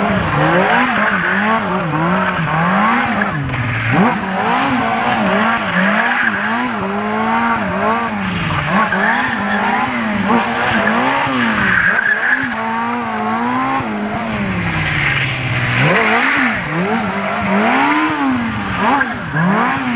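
Sport bike engine revving up and down in repeated waves, roughly once a second, as the bike circles on pavement, with tyre squeal from the spinning rear tyre.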